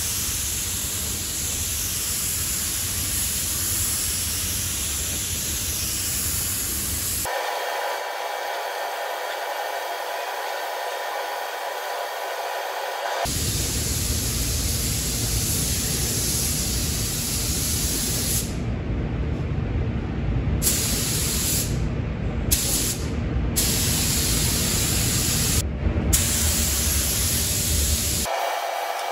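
Compressed-air gravity-feed spray gun hissing as blue acrylic paint goes onto truck cab doors, over a steady rush of air. In the second half the hiss cuts out briefly several times as the trigger is released between passes.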